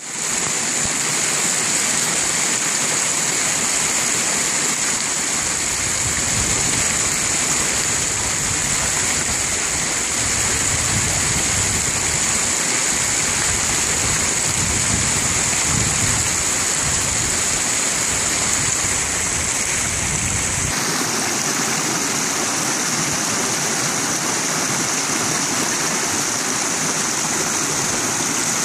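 Mountain creek rushing and splashing over granite rocks in a steady flow. The sound changes abruptly about two-thirds of the way through, to a closer small cascade.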